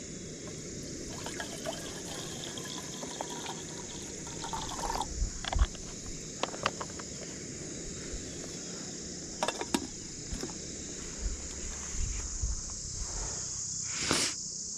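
Liquid pouring from a plastic pouch into a metal camp-stove pot, with a few sharp clicks and knocks of utensils on a wooden table. A steady high insect chirring runs underneath.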